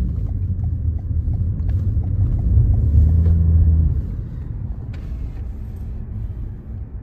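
A car driving, heard from inside the cabin: a steady low rumble of road and engine noise that swells about two and a half seconds in and eases off about four seconds in.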